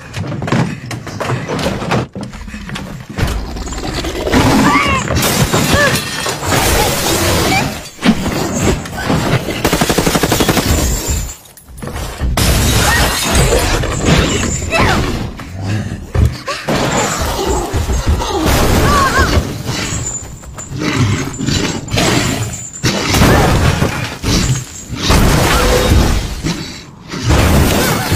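Movie soundtrack of a creature breaking into a bus: glass shattering and crashing again and again, with heavy booms and thuds, shouting and a music score underneath.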